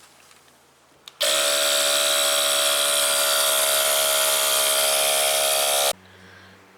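Small portable air compressor (tire inflator) pumping up a small tire: a click, then the motor runs at a steady pitch for about five seconds and stops abruptly, as when the inflator shuts off at its set pressure.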